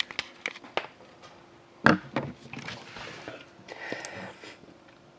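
Handling noise: a few light clicks, then a single sharp knock about two seconds in, followed by a couple of seconds of rustling as the camera and the sealed hockey card box are handled.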